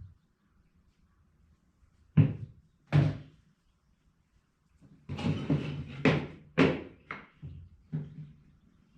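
Wooden knocks and thuds from handling or striking pieces of wood: two sharp knocks about two seconds in, then a quicker run of knocks mixed with scraping in the second half.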